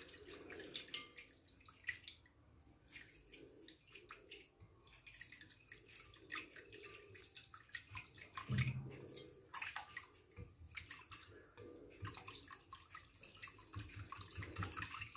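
A whisk beating a runny tahini sauce in a ceramic bowl: faint wet sloshing with many light ticks of the whisk against the bowl.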